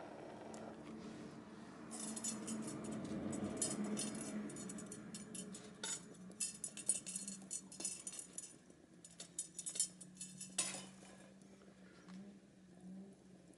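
Rapid clinking and crackling clicks of a hearth fire being tended: hard pieces of wood, embers and fire tools knocking together, densest through the middle and thinning out near the end, with a low steady hum underneath.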